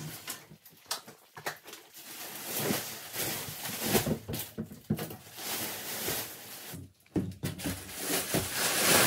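Plastic wrapping on a roll-packed mattress rustling and crinkling as the mattress is unrolled and spread out on a wooden bed frame, with irregular knocks and bumps of handling.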